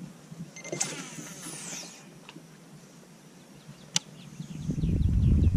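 Fishing reel during a cast: a click, then about a second of whirring falling in pitch as the spool pays out line. A sharp click follows about four seconds in, then faint quick ticks. A loud low rumble rises near the end.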